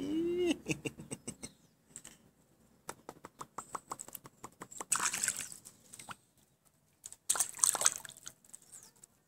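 Water splashing in a small pool as a baby slaps it with its hands: scattered small splats and drips, with two louder splashes about five and seven and a half seconds in. A short voice sound, rising then falling in pitch, right at the start.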